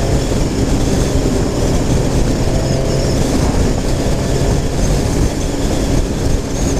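Triumph Street Triple 765 RS inline-three engine running at a steady cruise of about 90 km/h, with loud wind rush over the microphone.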